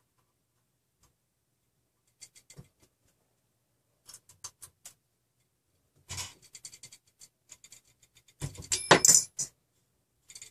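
Small metal parts clicking and clinking as hands work the steel rods, motor couplings and set screws of a RepRap 3D-printer frame. The clicks come scattered at first, then a louder metallic clatter with a brief ring near the end.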